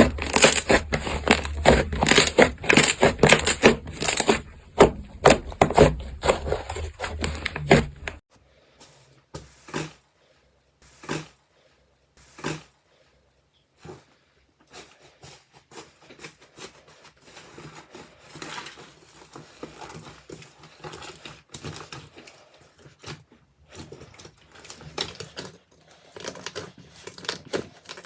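Hands pressing and squishing slime, a dense crackle of small wet pops and clicks. About eight seconds in the sound cuts to quieter, scattered pops and softer squelching.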